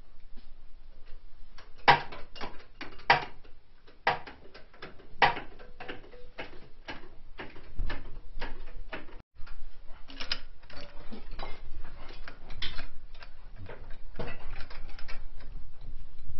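Workshop sounds of metal tools and parts being handled: irregular sharp clicks, clanks and ratcheting, with a brief dropout about nine seconds in.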